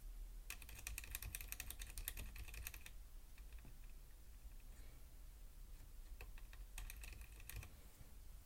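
Typing on a Corsair Strafe RGB mechanical keyboard with Cherry MX Silent switches, heard quietly: a quick run of keystrokes lasting about two and a half seconds, a few stray presses, then a shorter run near the end.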